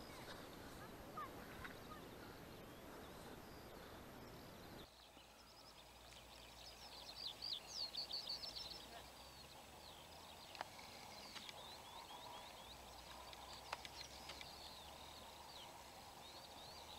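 Faint songbirds chirping: many short high chirps and trills over a soft background hiss, thickening after the first few seconds, with a few faint clicks.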